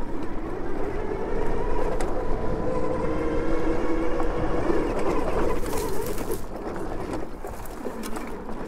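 Super73 e-bike's electric rear hub motor whining under load on a climb, rising a little in pitch over the first couple of seconds, then holding before fading out about six seconds in. Tyre and wind rumble runs underneath, with a few clicks from the bike going over bumps.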